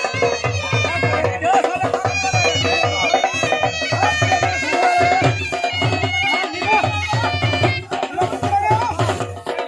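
Live Punjabi folk music: a dhol drum beating a quick, steady rhythm under a reedy wind instrument (baja) playing a melody over a held drone note.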